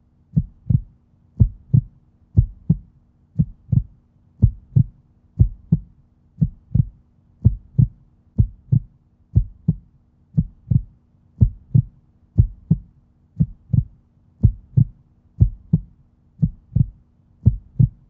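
Heartbeat-like beat in a background music track: a low double thump, lub-dub, repeating evenly about once a second over a faint steady low hum.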